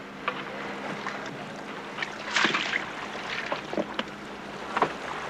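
Sea water sounds: irregular splashes and rushes of water, the loudest about two and a half seconds in, over a faint steady hum that stops around the same moment.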